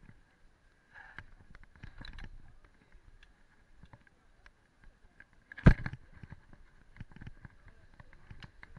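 Mountain bike rolling slowly over a paved street, its parts giving scattered light clicks and rattles, with one loud sharp knock a little past halfway as the bike jolts over a bump.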